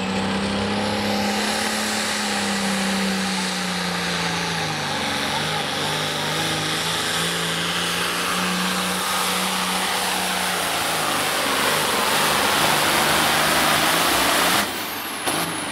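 Turbocharged diesel engine of a John Deere 466 hot farm pulling tractor running at full throttle under load while dragging the weight sled, with a high turbo whine over the engine note. About fourteen and a half seconds in the engine is suddenly let off, and the turbo whine falls away as it spools down.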